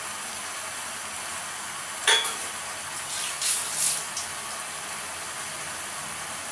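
Chicken frying in a pan with onion, spices and freshly added tomato, a steady sizzle. About two seconds in a utensil knocks against the pan with a short ring, followed by a couple of brief scraping strokes.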